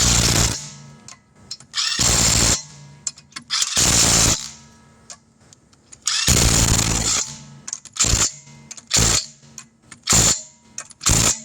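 Impact wrench spinning lug nuts onto a wheel in eight short bursts, each about half a second to a second long, one to two seconds apart.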